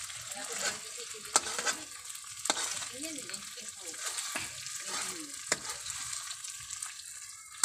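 Buro, fermented rice, sizzling in hot oil in a metal wok while being stir-fried with a metal spatula. A steady crackling hiss runs under scraping, with a few sharp clicks of the spatula against the pan.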